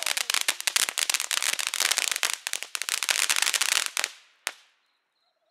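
Ground firework fountain spraying sparks, with dense rapid crackling over a hiss that dies away about four seconds in, followed by one last pop.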